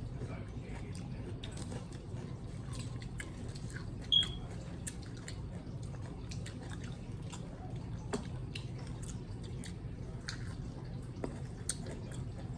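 People chewing a cotton-candy-wrapped pickle close to the microphone: scattered wet, crunchy clicks of chewing over a steady low hum. A brief high squeak about four seconds in is the loudest moment.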